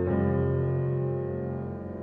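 Piano background music: a single chord struck at the start, held and slowly fading away.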